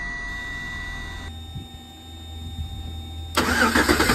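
A low steady hum, then near the end the starter suddenly begins cranking the Tahoe's 5.3 L V8, loud and pulsing. The engine is being started on wood gas alone, with the fuel pump fuse pulled and the gas forced into it by the gasifier's blower.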